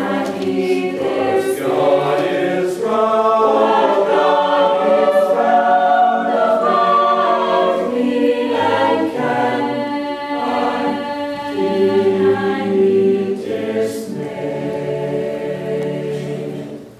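Mixed youth choir of girls and boys singing a hymn anthem in harmony. Near the end they hold a final chord, which then stops.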